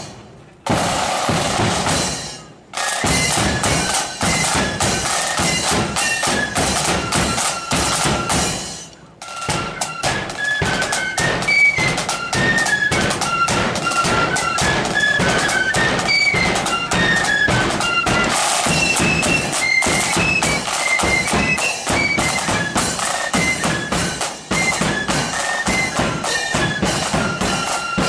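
A marching flute band playing: side drums and a bass drum beat steadily, and a melody on flutes runs over them from about ten seconds in. The sound drops out briefly twice near the start.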